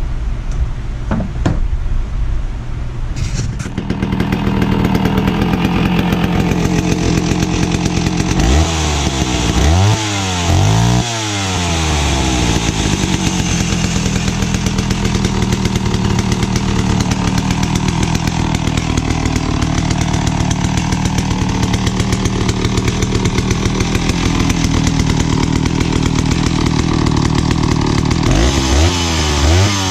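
Pioneer 650 two-stroke chainsaw starting about four seconds in and then running steadily, revved up and back down a few times around ten seconds in and again near the end.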